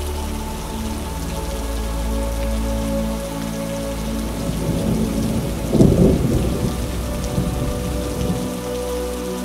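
Steady rain falling and pattering, with a roll of thunder that swells about five seconds in, is loudest around six seconds and fades within a couple of seconds.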